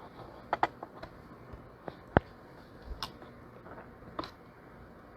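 Scattered small plastic clicks and taps as a laptop RAM module is pressed and checked in its slot clips, the sharpest click a little over two seconds in.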